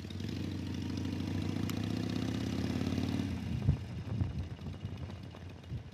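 A 2005 Harley-Davidson Sportster 883's air-cooled V-twin engine runs steadily under throttle while riding. After about three and a half seconds the throttle comes off and the sound drops to an uneven, lower beat.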